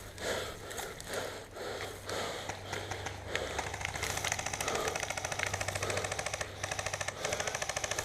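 Airsoft gun firing on full auto: a fast, even rattle of shots in long bursts from about halfway in, over a low steady hum.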